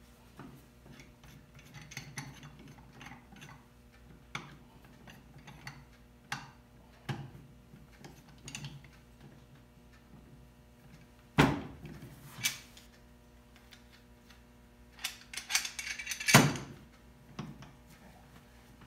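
Bar clamps being set and screwed tight on a wooden board at the bench edge: scattered clicks and small knocks of the clamp screw and metal jaws, with two loud sharp knocks, one a little past halfway and one near the end amid a brief clatter.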